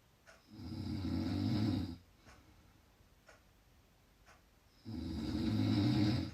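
Two loud snores, each about a second and a half long, a few seconds apart. Faint ticks sound about once a second in the quiet between them.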